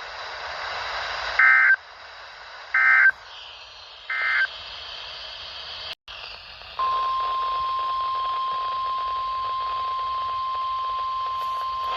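NOAA Weather Radio broadcast over radio hiss. Three short warbling SAME data bursts about 1.4 s apart mark the end of the marine warning. From about 7 s in, the steady single-pitch 1050 Hz warning alarm tone sounds, announcing the next alert.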